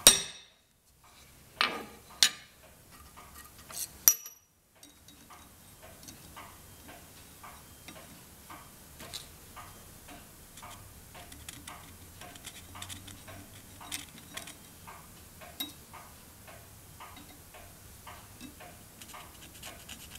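Sharp metal-on-metal strikes of a center punch marking hole centres on a metal flange: a loud strike at the start and a few more within the first four seconds. After that, a faint, even ticking repeats steadily.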